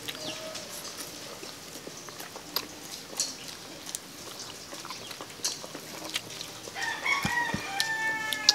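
A rooster crowing, one long drawn-out call near the end. Before it, scattered short clicks and smacks of people eating with their hands.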